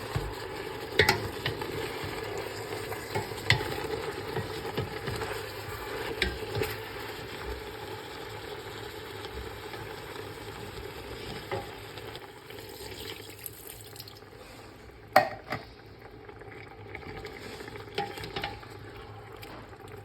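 Chicken cooking in a pot while it is stirred: a steady frying hiss with occasional sharp knocks of the stirring utensil against the pot. The hiss eases off in the second half, and the loudest knock comes about three quarters of the way through.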